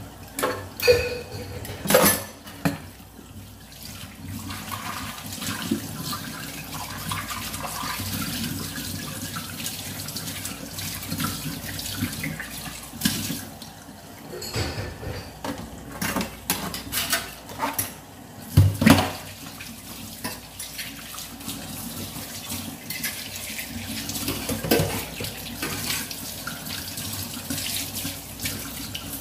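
Running water, steady throughout, with occasional sharp knocks, the loudest about 2 seconds in and again about 19 seconds in.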